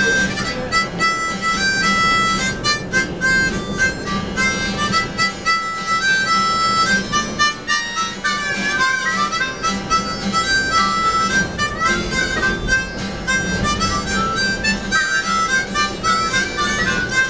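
Harmonicas playing an instrumental break of a ballad tune: a quick, stepping melody with chords, over a steady low hum.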